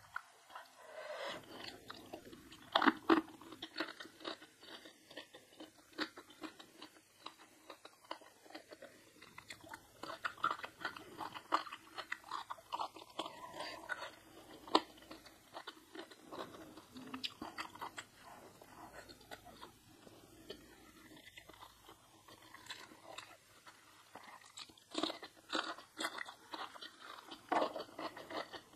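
A person eating close to the microphone: steady chewing broken by crisp crunches and bites, loudest about three seconds in and again near the end.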